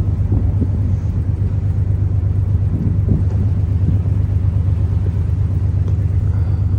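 Boat's engine running with a steady low drone.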